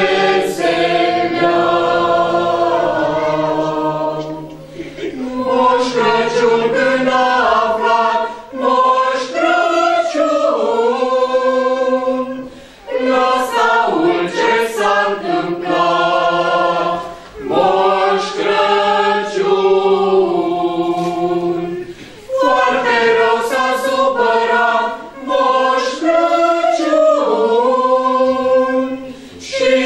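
Mixed choir of children and adults singing a Romanian Christmas carol a cappella, phrase by phrase with brief breaths between lines.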